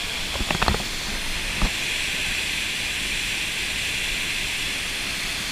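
Steady rush of water falling at Kempty Falls, a constant hiss, with a few brief knocks in the first two seconds.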